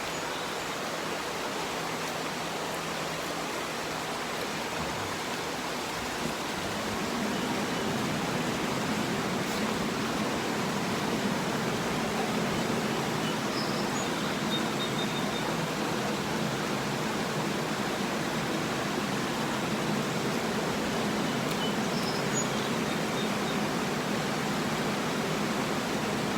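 A mountain stream rushing over rocks, a steady even water noise that gets a little louder about six seconds in.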